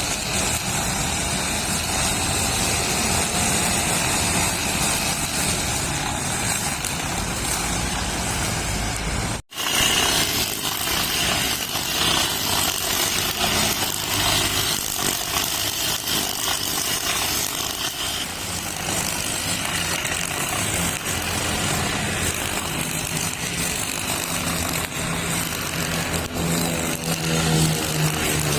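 Brush cutter fitted with nylon trimmer line, its small engine running steadily while cutting grass. The sound cuts out for a split second about nine seconds in, and the engine pitch rises near the end.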